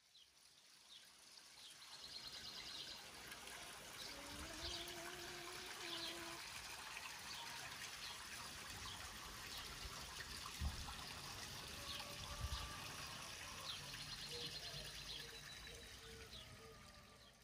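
Water trickling steadily into a garden pond, with birds chirping and trilling now and then. The sound fades in at the start and out at the end.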